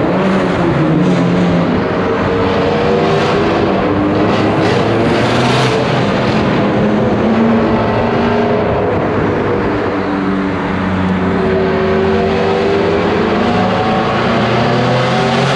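Mazdaspeed3's turbocharged 2.3-litre four-cylinder engine, running through a catless CPE exhaust with the wastegate vented out the hood. It is loud throughout, and its note rises and falls several times as the revs change.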